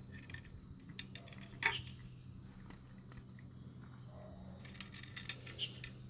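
Tuxedo cat eating dry kibble from a plastic plate: scattered sharp clicks and crunches as pieces knock against the plate and are bitten. The loudest comes about a second and a half in, and a quick cluster follows near the end. A steady low hum runs underneath.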